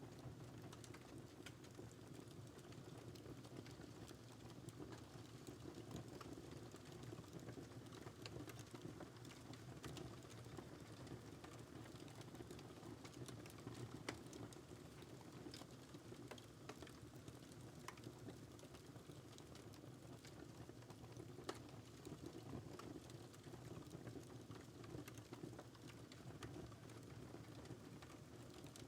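Faint wood fire in a fireplace crackling, with a steady low rumble under many small scattered pops. The sharpest pops come about halfway through and again about two-thirds of the way in.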